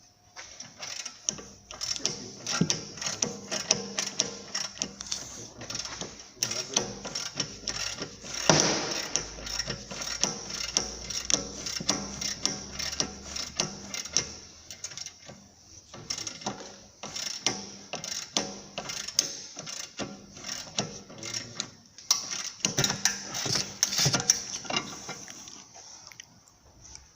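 Hand tools working on a seized suspension bolt: a long run of quick, irregular metallic clicks and taps, with short pauses around 15 s and 21 s in.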